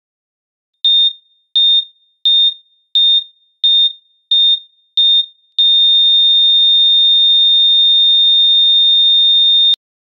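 Heart monitor beeps: seven short, evenly spaced high beeps, a little under one a second, then a single steady flatline tone for about four seconds that cuts off suddenly. The unbroken flatline tone is the monitor's signal that the heartbeat has stopped.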